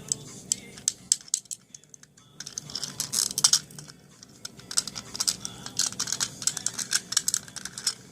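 Cockatoo biting and bashing a plastic toy tape measure: quick, irregular clicks and clacks of beak on plastic, sparse at first, then a dense clatter from about two and a half seconds in.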